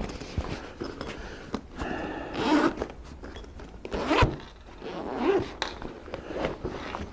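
Zipper on a soft Cordura pistol carry case being pulled open, rasping in several short runs, with the nylon fabric rustling as it is handled.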